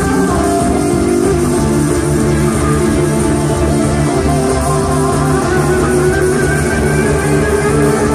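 Jam band playing loud live music, electric guitar and bass over a steady beat, recorded from the audience in the hall.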